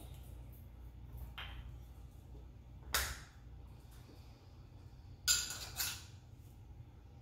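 Measuring spoons and spice jars handled at a glass mixing bowl: a few short clicks and knocks, the loudest about three and five seconds in, over a steady low hum.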